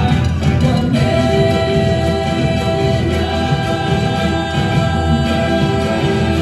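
Colombian folk dance music with several voices singing together over a steady beat, held sung notes sounding above the band.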